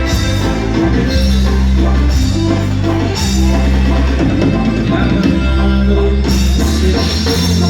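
Instrumental passage of ranchero-style Mexican dance music: band with drum kit and bass playing a steady beat, no singing.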